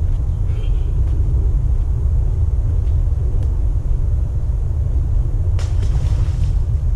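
Wind buffeting the microphone, a steady low rumble throughout. About five and a half seconds in, a brief splash as a carp is released into the water.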